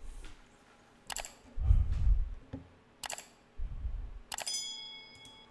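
Subscribe-button animation sound effects: two mouse clicks, each followed by a low thud. Near the end a last click and a bell ding rings out and fades.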